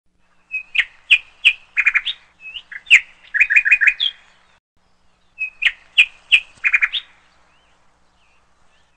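Songbird singing: a phrase of sharp, high chirps and quick trills, given twice, the second a near repeat of the first.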